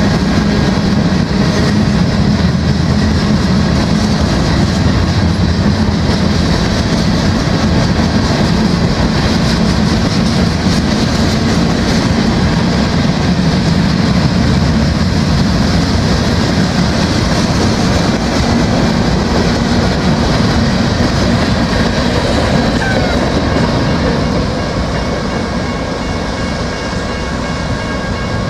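Empty covered grain hopper cars of a freight train rolling past close by: a steady loud rumble and clatter of steel wheels on the rails, somewhat quieter over the last few seconds.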